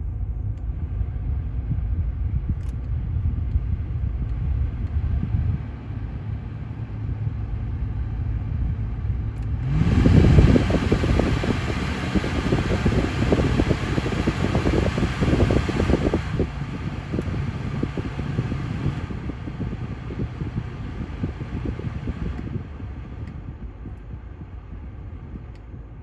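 Air-conditioning blower running with a low rumble; about ten seconds in it jumps to a loud rush of air, then drops back in three steps over the next dozen seconds, as if switched down through its fan speeds.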